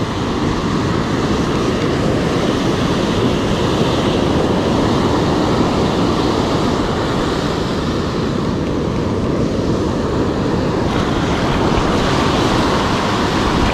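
Surf breaking and washing up a sandy beach, mixed with wind on the microphone: a steady, loud rushing.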